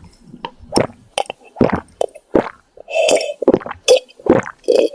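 Cartoon gulping sound effect: a quick run of about ten wet swallows, two to three a second, as the red potion is drunk.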